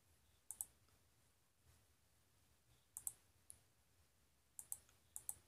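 Near silence broken by faint, sharp clicks, mostly in quick pairs: one pair about half a second in, another around three seconds with a single click just after, and two more pairs near the end.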